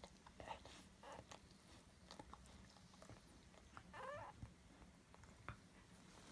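Faint wet licking and smacking from a Labradoodle mother licking her newborn puppies, with one brief wavering squeak from a newborn puppy about four seconds in.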